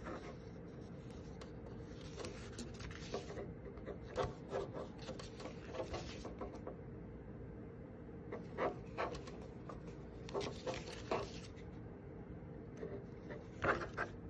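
Glossy paper pages of a printed booklet being turned and handled by hand: several short bursts of crisp rustling and rubbing, the loudest near the end, over a faint steady hum.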